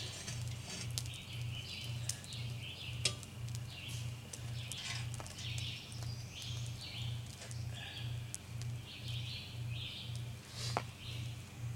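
Songbirds chirping repeatedly in woodland, over a low hum that pulses about twice a second, with a few sharp metallic clicks.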